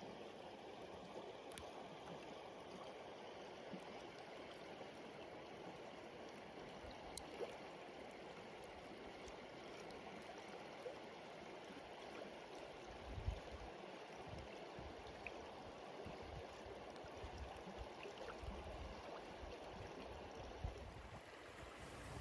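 Faint, steady rush of a flowing stream, with a few brief low thumps partway through.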